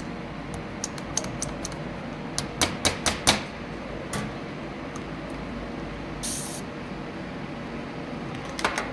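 Light clicks and taps of a syringe and glass microscope slides being handled on a bench, with a cluster of sharper clicks a few seconds in and a brief hiss about six seconds in.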